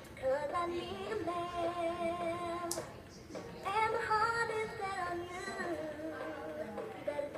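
Singing plush toy bear playing a recorded song from its built-in speaker: a woman's voice singing a melody of held notes over light backing music, with a short break about three seconds in.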